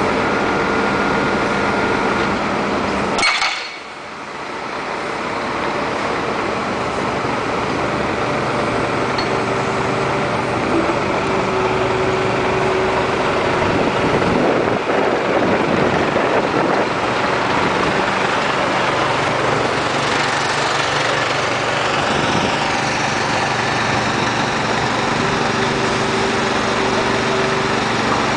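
Jonyang JY230E hydraulic excavator's diesel engine running steadily while the machine swings and works its boom and arm, with hydraulic whine tones that come and go. A sharp knock sounds about three seconds in, after which the sound briefly drops away before picking back up.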